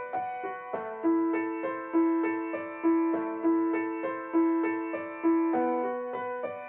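Background music: a gentle piano melody with notes struck about once a second and left to ring out.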